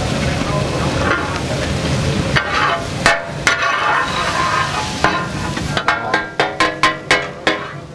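Steel spatulas clanking and scraping on a large flat iron griddle (tawa) as fish katakat is chopped and stirred, over a steady sizzle. The ringing metal clanks start a couple of seconds in and come faster, about three or four a second, near the end.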